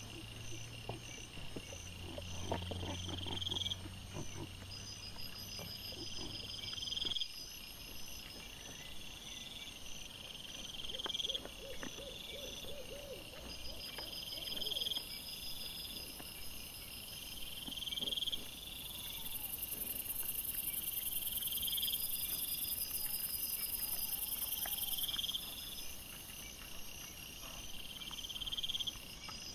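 Night insects chirping: high trills that each rise over about a second and a half and repeat every couple of seconds, over a faster pulsed chirp. There are faint rustles and clicks in the first few seconds.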